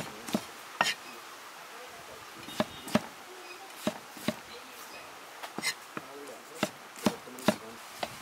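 Large knife chopping tomatoes on a wooden log chopping block: about ten sharp knocks, irregularly spaced, several coming in quick pairs.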